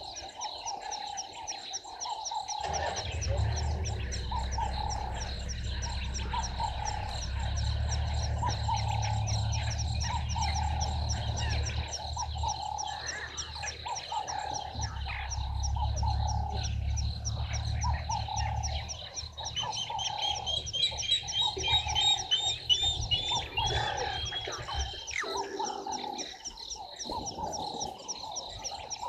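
Frogs croaking at a waterhole, a call repeating about once a second over fast high ticking and a steady high whine. A low rumble runs under them from a couple of seconds in until near the end. A bird gives a run of short falling notes about twenty seconds in.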